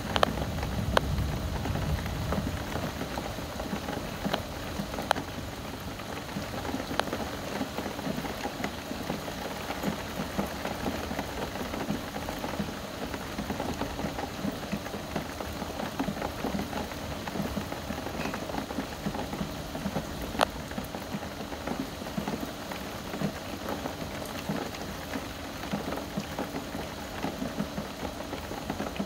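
Steady rain falling in a thunderstorm, with scattered sharp taps of drops striking something close by. A low rumble fades out in the first two seconds.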